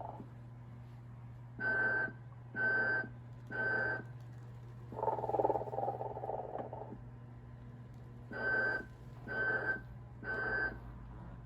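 Telco animated Santa toy snoring and whistling: two sets of three short, evenly spaced whistles with a drawn-out snore between them, over a steady low hum.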